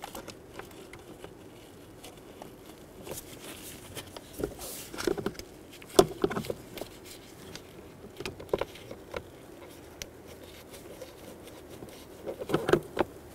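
Gloved hands fitting a plastic blower motor resistor into the HVAC housing and starting its mounting screws by hand: scattered small clicks and rustles, with a sharper click about six seconds in and a cluster of clicks near the end.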